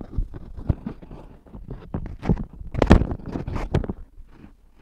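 Clip-on lavalier microphone being handled and fastened to a shirt: irregular knocks, clicks and cloth rubbing picked up directly by the mic, loudest about three seconds in.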